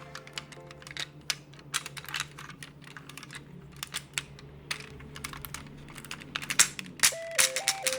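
Hard plastic parts of a transforming robot car toy clicking and snapping irregularly as they are handled and fitted together; music starts up near the end.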